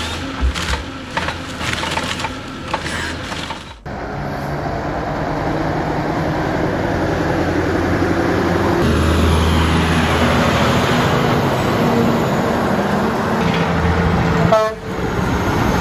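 Heavy logging machinery: a few seconds of knocks and cracks, then an engine running steadily under load. The sound breaks off abruptly twice.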